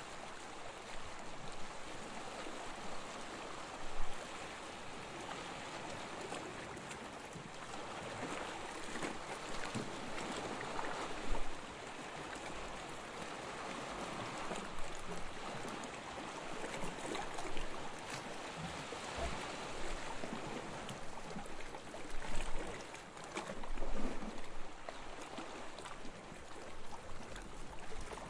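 Gentle sea waves washing onto a beach, a continuous rushing wash that swells and ebbs, with a few brief louder splashes, one about four seconds in, one near eleven seconds and two close together past twenty-two seconds.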